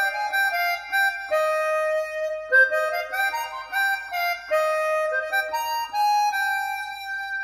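Music played through an Icon Audio MFV 3 Super floorstanding speaker: a solo melody of held notes, often two sounding together, moving from note to note about every half second.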